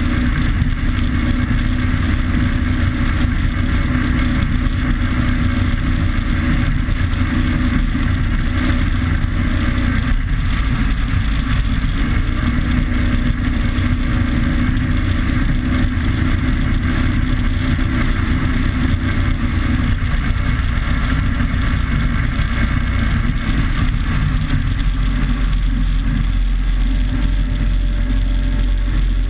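Rigid inflatable powerboat running at speed through choppy water: a steady, loud engine drone mixed with rushing wind and water noise. The low rumble grows stronger over the last few seconds as the boat heels into a turn.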